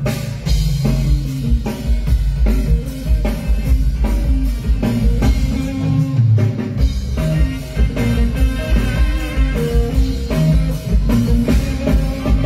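Live band music: a drum kit keeping a steady beat under electric guitar and keyboard. The bass briefly drops out about six seconds in.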